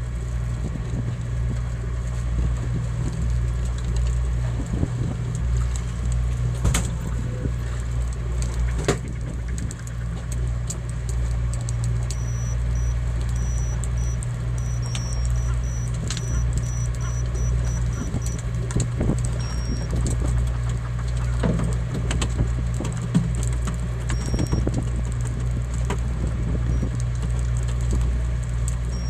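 Fishing boat's engine running steadily with a deep hum, under scattered metallic clinks and knocks from the fishing gear on deck.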